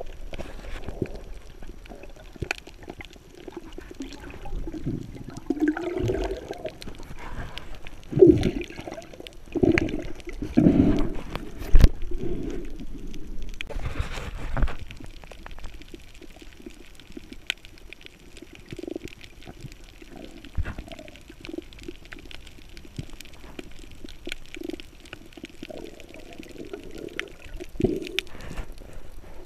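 Underwater bubbling from a scuba diver's exhalations: irregular bursts of rising bubbles that gurgle and rumble, clustered in several breaths out, with a hissing breath in through the regulator about halfway.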